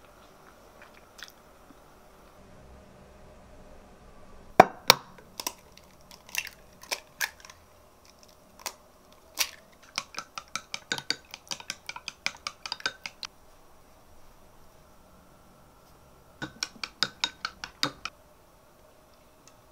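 Wooden chopsticks beating raw eggs in a ceramic bowl, clicking against the bowl at about four or five clicks a second in two quick runs, one in the middle and one near the end. Before the first run there are a few separate sharp knocks.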